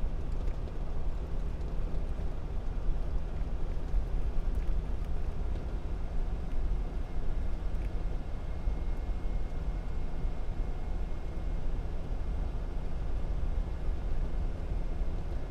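Steady low rumble of a car's engine and road noise, holding an even level without a clear rise and fall. A faint thin high tone sounds for a few seconds around the middle.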